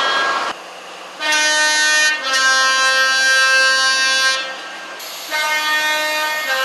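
Two-tone train air horn sounding repeated loud blasts, stepping between its two notes. One blast cuts off about half a second in, a longer one follows, and another starts near the end.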